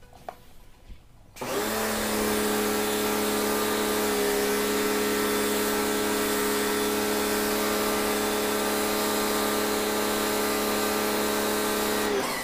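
Kawasaki HPW3 electric pressure washer with a new pump assembly starting up about a second and a half in, running with a steady hum and the hiss of its water spray, then cutting off abruptly near the end. It is spraying strongly again after the pump replacement.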